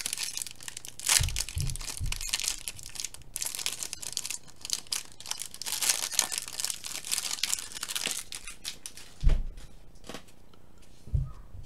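Plastic wrapper of a 2014 Turkey Red trading-card pack crinkling and tearing as it is opened by hand, with a few soft thumps. The crinkling dies down about eight seconds in, leaving quieter handling of the cards.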